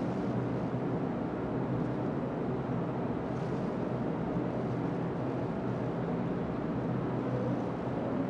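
Steady background hum and hiss with no events: the room tone of the voice-over recording between narrated lines.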